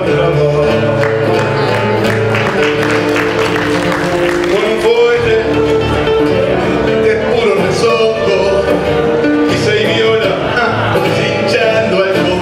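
A male singer sings a tango into a microphone, backed by an ensemble of acoustic guitars playing plucked and strummed chords.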